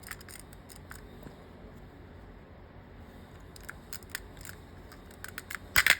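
Plastic pry tool clicking against the small plastic retaining clips of a car's master window switch as it is pried out of the door panel: scattered light clicks, then a louder pair of sharp snaps near the end as the switch pops free.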